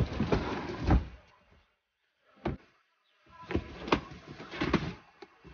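Large cardboard box being pushed into a car's cargo area: cardboard scraping and sliding, with a few knocks as it bumps against the boot, one sharp knock about two and a half seconds in.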